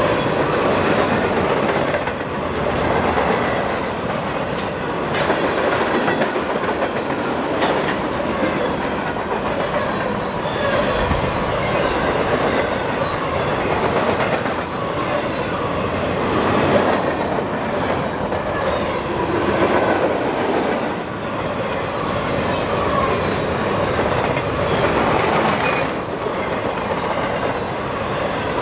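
Freight train's tank cars and boxcars rolling past at speed: a steady rumble of steel wheels on rail with the clatter of wheels over rail joints.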